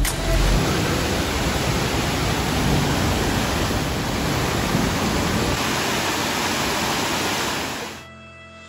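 Waterfall pouring over rock ledges: a steady, loud rush of water. It cuts off abruptly near the end, leaving faint music.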